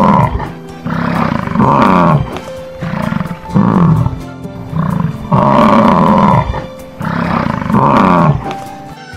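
American bison bellowing: a string of loud, rough, growling roars, some short and some longer, repeated every second or two over background music.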